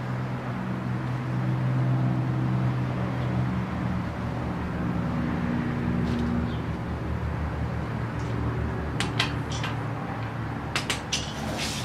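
A steady low mechanical hum, with a handful of sharp metallic clicks and clinks about nine seconds in and near the end as parts and tools are handled during timing-belt work.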